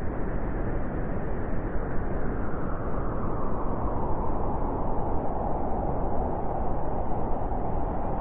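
Winter wind blowing steadily: a dense, even rushing noise with a hollow band in the middle of the range that grows a little stronger toward the end.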